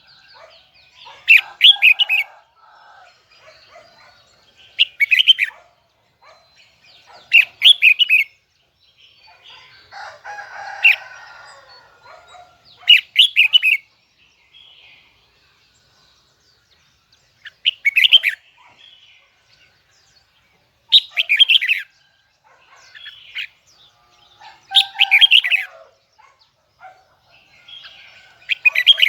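Red-whiskered bulbul singing in short, loud, rapid phrases, about one every three to four seconds.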